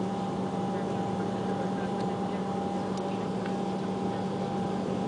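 Airbus A330-200 heard from inside the cabin while taxiing: the steady hum of the jet engines at low thrust, a constant low drone with a thinner steady tone above it and faint occasional ticks.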